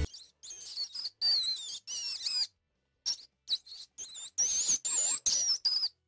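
Mouse squeaking: a rapid series of short, high-pitched squeaks, some wavering up and down in pitch, with a brief pause about two and a half seconds in.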